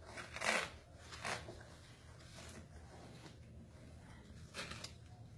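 Scissors snipping through a plaster cast, a few short cutting sounds spaced out, with a longer gap before the last ones near the end.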